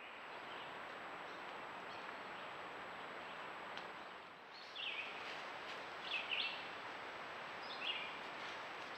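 Steady outdoor hiss, with a bird giving short high calls three times in the second half.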